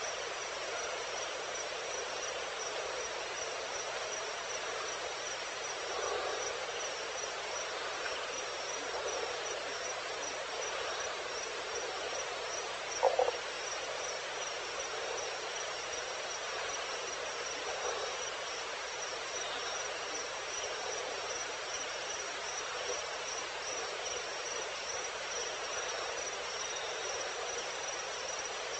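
Evening insect chorus: a steady, high, pulsing trill over a dense hiss of insects, with one brief louder sound about halfway through.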